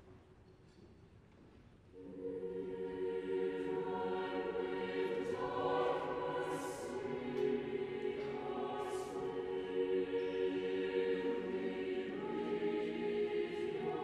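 Choir singing slow, sustained chords, coming in about two seconds in after a brief hush.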